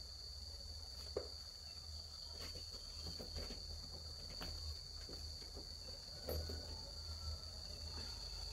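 Crickets trilling steadily at one high pitch. Faint rustles and a few light knocks come from someone moving about on a bed.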